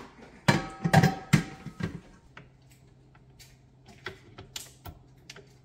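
Kitchen utensils and dishes being handled: several loud clanks with brief metallic ringing in the first two seconds, then scattered light clicks and taps.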